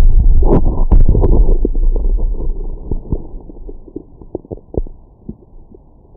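A person's stomach growling while digesting breakfast: a loud, low rumble for about the first two seconds that fades away, followed by scattered small gurgles and pops.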